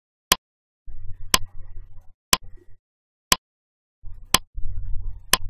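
On-screen countdown timer ticking: six sharp clicks, one each second, as the seconds count down. A low background rumble comes and goes between the ticks.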